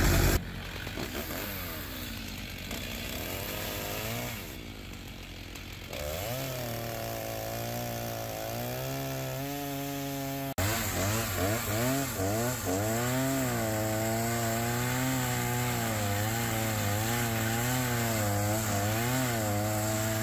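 Stihl gas chainsaw cutting through a log, its engine pitch wavering up and down as the chain loads up in the cut and frees again, louder from about halfway. The owner thinks the chain is dulled from being run into the ground.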